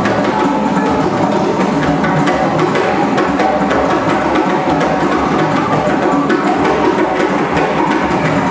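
Djembe played with bare hands: a steady, continuous rhythm of sharp slaps and deeper tones.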